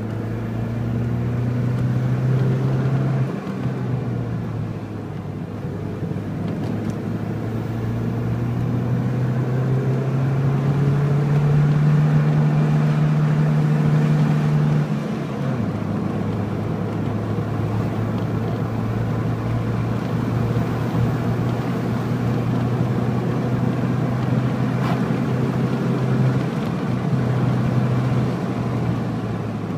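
Car engine running under way with steady road noise. Its note climbs slowly over about ten seconds, then drops suddenly about halfway through.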